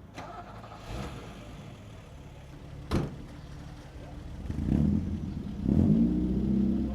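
A car engine revving twice, rising in pitch and loudest near the end, with a single sharp knock about three seconds in.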